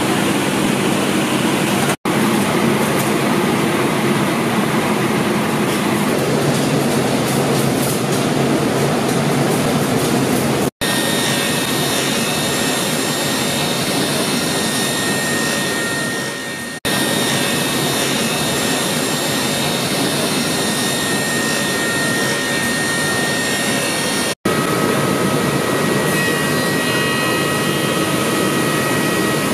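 Woodworking machines running, circular saws and a planer-thicknesser, a loud steady din. A steady high whine joins it about a third of the way in, and the sound breaks off and changes abruptly several times.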